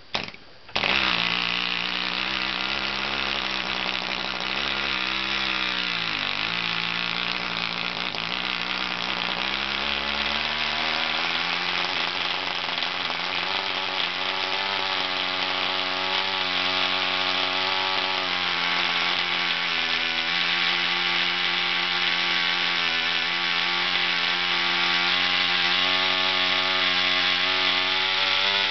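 Home-built BJ Cicada 1.4 cc piston-port model aircraft diesel engine, flicked over by hand with a couple of short pops, catching about a second in and then running continuously at high revs on its propeller. Its pitch wavers around five to six seconds in, then settles and creeps slightly higher toward the end as the compression screw is adjusted.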